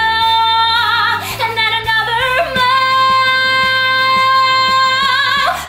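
A woman singing a pop song over a backing track: a held high note, a short run, then one long note held for nearly three seconds that ends in vibrato.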